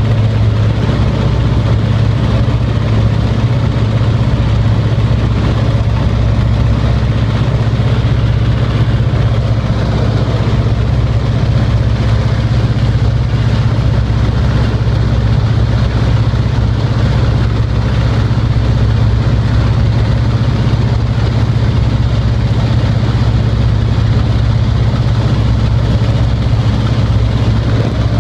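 1942 Waco biplane's radial engine running steadily at takeoff power through the liftoff and climb-out, heard from the cockpit as a loud, even drone.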